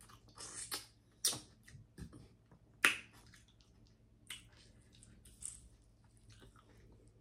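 Mouth noises of someone eating a seafood boil: a few sharp wet clicks and smacks, the loudest about three seconds in, with quieter chewing sounds between them.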